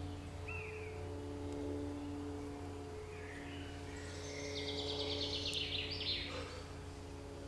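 Wild birds calling: a few short chirps, then a rapid trill of about ten notes a second halfway through, over a steady low hum.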